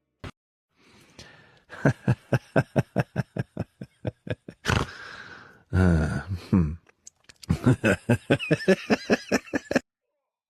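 A person laughing hard in rapid pulses, about five a second, in two long bouts, with a short voiced cry between them.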